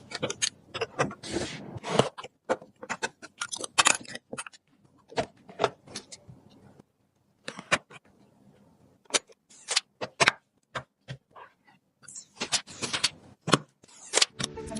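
Computer parts being handled and fitted by hand: irregular small clicks, taps and clacks of plastic and metal, with a few short rustles or scrapes and a brief pause about halfway through.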